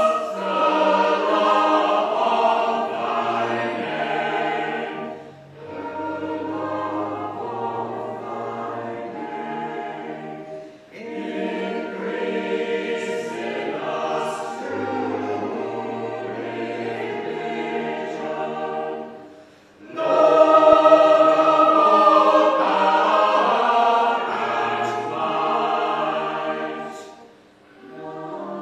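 A choir singing an 18th-century West Gallery anthem in parts, phrase by phrase with short pauses between phrases. It grows louder for a phrase from about twenty seconds in.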